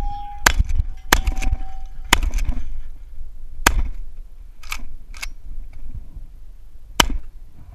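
Pump-action Benelli Supernova shotgun firing five shots at uneven intervals, the gaps growing from under a second to several seconds. A steel target rings briefly with a clear tone after a couple of the hits.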